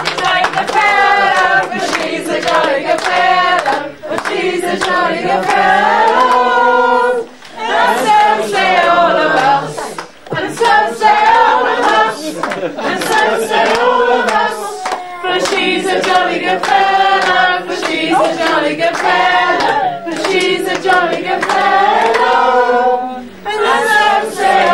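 A roomful of people singing together and clapping their hands along with the song.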